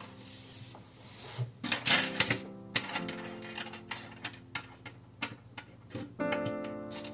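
Small metal presser feet and plastic bobbins clinking and tapping on a hard tabletop as they are pushed about and spread out by hand, with a dense cluster of clatters about two seconds in.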